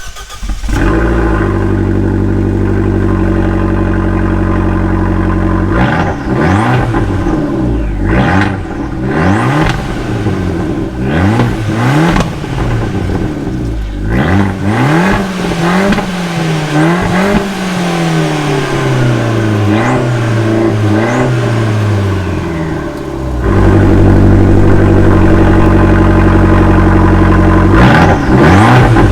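Abarth 695 Biposto's tuned turbocharged 1.4-litre four-cylinder, breathing through a full titanium exhaust from the manifold back, fires up and idles. From about six seconds in it is revved again and again, the pitch climbing and dropping, and after about twenty-three seconds it runs louder and steady.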